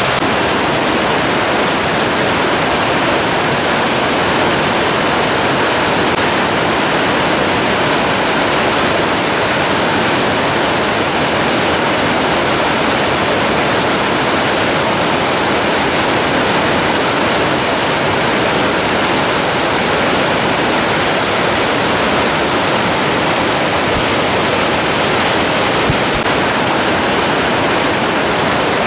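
Whitewater of a mountain river rushing over rocks: a steady, loud rushing noise that does not let up.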